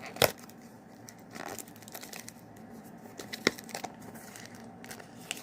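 Product box being opened by hand: a sharp snap a moment in, then scattered rustles and clicks of the packaging being handled.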